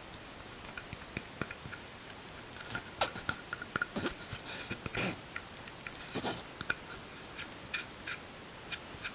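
Small wooden parts, the glued tenon and its wedges, handled in the hands: scattered light clicks, taps and scrapes of wood, busiest in the middle few seconds.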